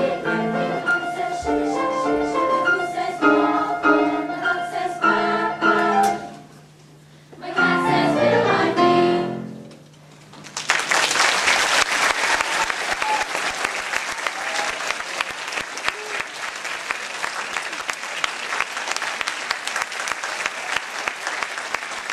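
Middle school girls' choir singing with piano, ending a piece: a brief break about six seconds in, a final phrase that dies away, then audience applause from about ten and a half seconds in.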